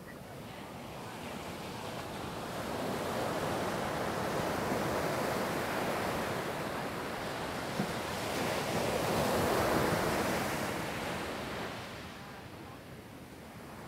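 Ocean surf washing onto a sandy beach, a steady rush of breaking waves that swells in two long surges and eases off near the end.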